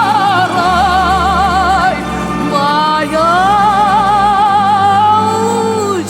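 A woman singing a slow Russian folk song with a wide vibrato over low sustained accompaniment. She holds one long note, breaks off near two seconds in, slides upward, and holds another long note that falls away at the end.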